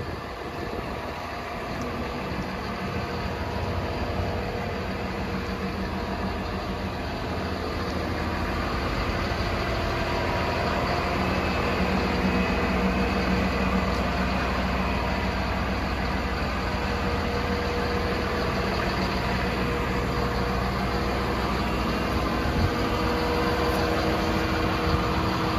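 Diesel engine of a Cat 924K wheel loader idling steadily, growing louder over the first dozen seconds and then holding level.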